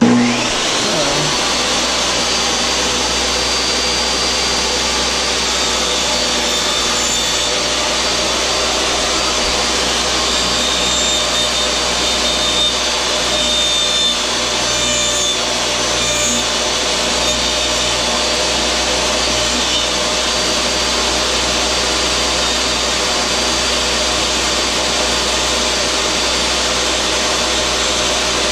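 A table saw starts up and comes to speed with a rising whine, then runs steadily while a large-diameter PVC pipe is turned by hand against the blade, shaving a thin slice off its end.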